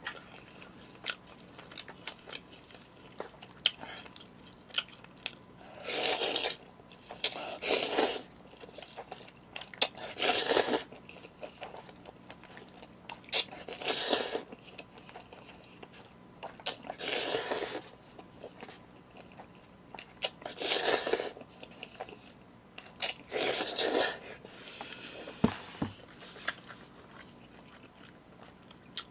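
Eating jjajangmyeon noodles with chopsticks from a bowl held up to the mouth: noodle slurps and chewing in about seven noisy bursts of a second or so, a few seconds apart, with small clicks in between.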